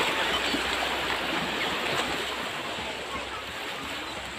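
Steady rush of flowing water, like a stream, slowly getting a little quieter.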